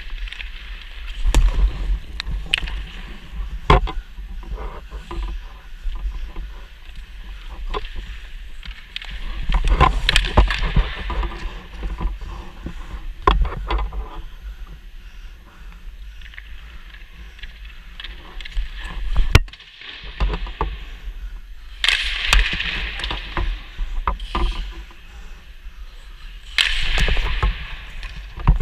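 Hockey skate blades scraping and hissing on the ice, louder in a few longer pushes, broken by several sharp knocks of stick, puck or goalie pads, heard close up from a helmet-mounted camera with a low rumble underneath.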